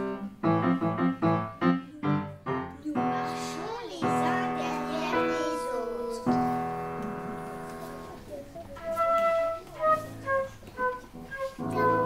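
Piano playing short repeated chords, then long held chords. About two-thirds of the way through, a flute joins with a short melody of clear single notes.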